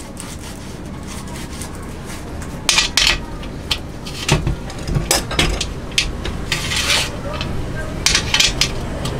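Aluminium screen-printing frame being handled and fitted with a clip-on rail, clinking and knocking against metal rail pieces and the table's hinge clamps. Quiet at first, then from about three seconds in a run of irregular sharp metallic clicks and taps.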